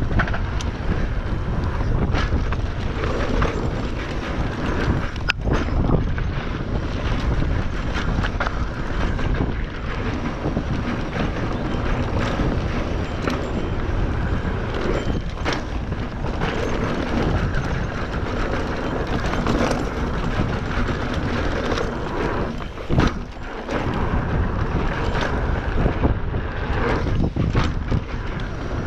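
Wind buffeting the microphone over the rumble of mountain bike tyres on a rough dirt trail, with frequent short knocks as the bike jolts over bumps and rocks.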